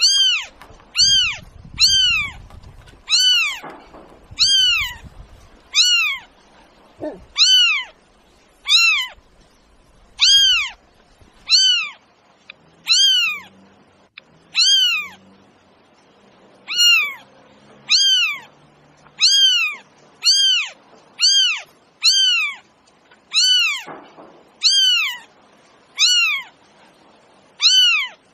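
Domestic cat meowing over and over, about one short high meow a second, each one rising and then falling in pitch, all much alike.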